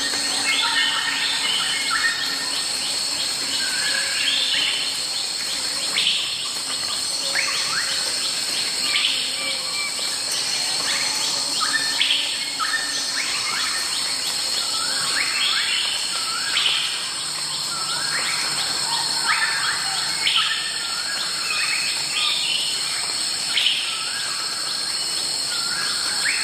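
Countryside ambience of insects and birds: a steady high-pitched insect chorus goes on throughout, while birds call over it with short, repeated falling notes every second or two.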